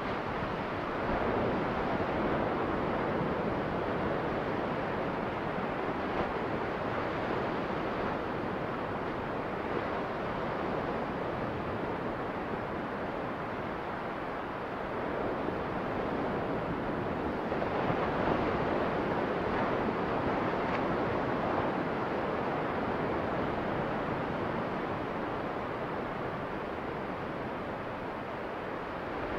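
Waves washing onto a sandy beach, an even rush of surf that swells a couple of times, with some wind on the microphone.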